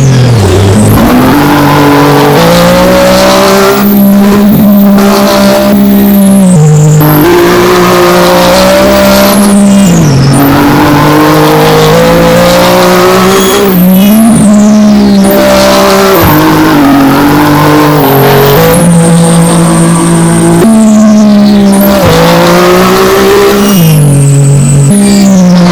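A race car engine running hard, its pitch holding or climbing slowly and then dropping abruptly every few seconds as it shifts gear.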